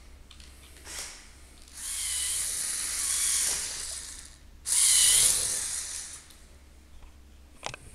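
Lego Technic tractor's small electric motor whirring through its plastic gearing in two runs of a couple of seconds each, the second louder, with a sharp click near the end.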